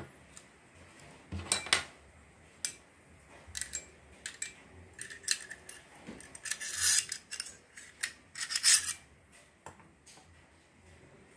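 Irregular metallic clicks and scrapes of a chrome Mollar Professional manual staple gun being handled and worked at, its magazine pusher rod drawn out, while a staple is jammed at the bottom of the gun. A few louder scrapes stand out about 2, 7 and 9 seconds in.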